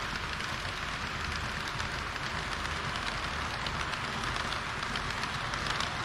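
Model trains running on plastic sectional track close to the microphone: a steady rattling hiss of small wheels over rail joints and points, with the drive motors whirring underneath. It grows a little louder near the end as the red railcar passes right by.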